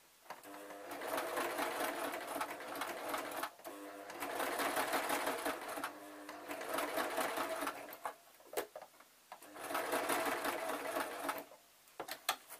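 Electric domestic sewing machine stitching a straight seam through fabric. It runs in four spurts of two to three seconds each, with short stops between, a sharp click in the longer gap and a few clicks near the end.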